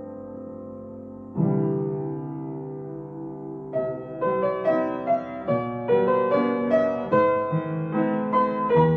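Solo piano music: a held chord fading, a new chord struck about a second and a half in, then a melody of quick notes from about four seconds in.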